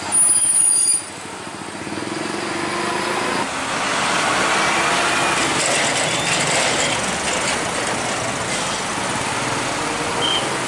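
Truck and car engines running in slow traffic. Just after the start there is a loud, high-pitched squeal lasting under a second, and after that the traffic noise swells and holds steady.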